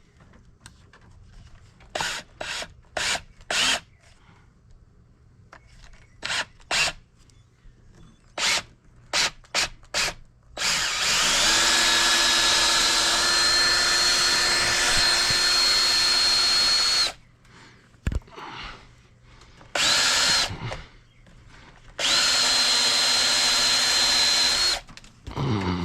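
Electric power-tool motor, like a drill, driving a wire stripper through scrap wire. First a series of short blips, then it spins up and runs steadily for about six seconds, gives one more short burst, and runs again for about three seconds near the end, as the wire is fed through to slit the insulation.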